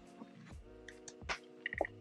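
Quiet background music with held, sustained chords, and a few faint short clicks.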